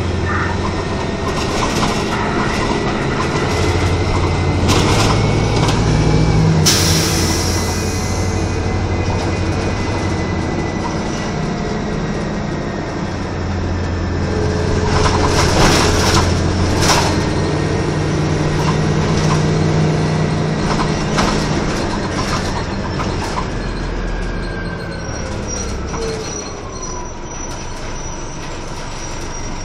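Cabin sound of a 1996 Nova Bus RTS diesel transit bus under way: a steady engine drone and a thin transmission whine that step and glide with speed, with rattles and knocks from the body. A short hiss comes about seven seconds in, and near the end the whine falls in pitch as the bus slows.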